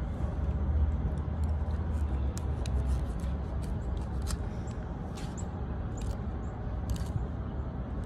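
Wind rumbling on the microphone, with scattered light clicks and scrapes of a plastic fork picking through lettuce in a plastic takeout tray.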